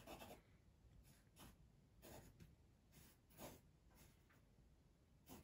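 Faint scratching of a graphite pencil drawing on paper, in a few short strokes about a second apart.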